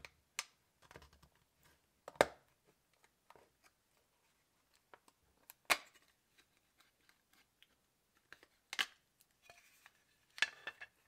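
Zune case being pried open with a plastic pry tool: the clips holding the back shell snap loose as sharp clicks a few seconds apart, with light scraping of the tool along the seam between them. A quick cluster of clicks near the end comes as the case comes apart.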